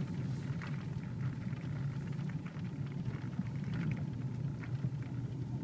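Steady low rumble of a vehicle running, with faint scattered ticks and patter over it.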